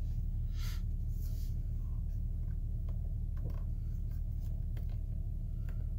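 Twin-turbo V6 of a Mercedes-AMG GLE 43 idling steadily in Sport+ mode, heard from inside the cabin, with a few faint clicks and rubs over it.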